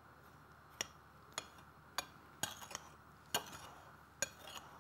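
Metal spoon clinking against a ceramic bowl while stirring breadcrumbs, a light clink every half second or so.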